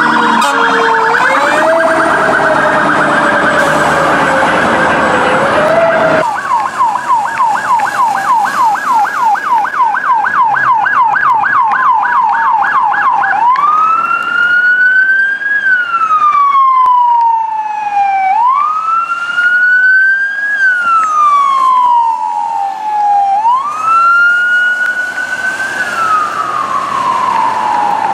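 Emergency vehicle sirens. For the first six seconds a lower siren glides slowly in pitch among other tones. Then a police car siren yelps rapidly, about three sweeps a second, and about halfway through switches to a slow wail that rises and falls every five seconds or so.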